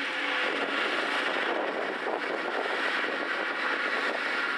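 John Deere 7500 self-propelled forage harvester chopping grass and blowing it into a silage trailer, with a Fendt 916 tractor's engine running alongside: a steady, dense mechanical drone with a faint high whine.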